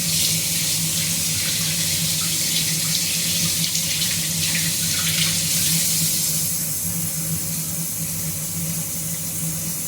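Tap running steadily into a sink, splashing as something is rinsed under the stream; the water's hiss thins a little about six and a half seconds in. A steady low hum runs underneath.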